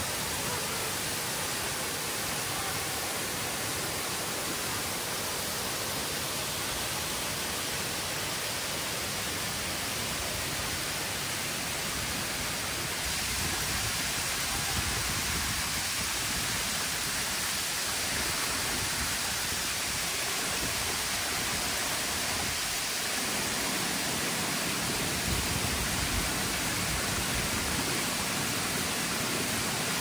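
Rushing water of a river at a waterfall: a steady, even rush with no breaks.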